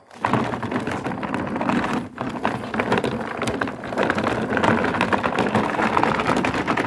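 Plastic storage bin dragged on a rope over rough dirt and grass, scraping and rattling without a break, with the plastic toy figures inside knocking about. The noise dips briefly about two seconds in.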